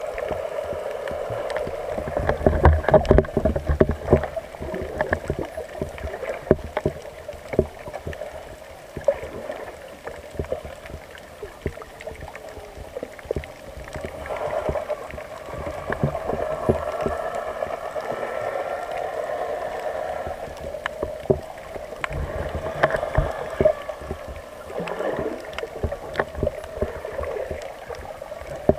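Muffled underwater sound through a camera's waterproof housing: a steady drone of moving water with many scattered sharp clicks and low thumps, the thumps heaviest a few seconds in and again in the last quarter.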